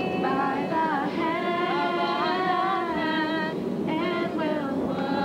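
Young female voices singing a slow worship chorus unaccompanied, with long held notes.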